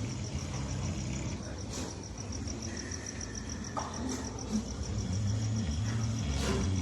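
A sleeping pig snoring, with low snoring breaths at the start and again from about five seconds in.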